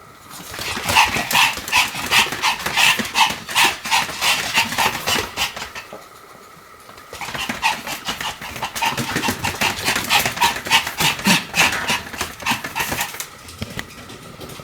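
Pomeranian yapping rapidly in excitement, short high yaps about four a second in two long runs with a pause of about a second near the middle.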